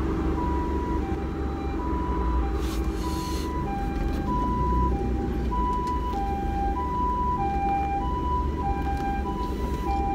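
Japanese ambulance siren sounding its two-tone hi-lo 'pee-poh' pattern, switching back and forth every half second or so. It is heard from inside a closed car cabin over the car's low engine and road rumble.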